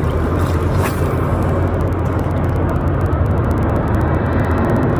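Boat motor running with a steady low hum, with fast, fine ticking through the middle.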